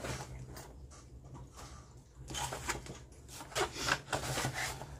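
Cross-stitch fabric and a piece of white card being handled: soft rustling and rubbing that starts about two seconds in, over a low steady hum.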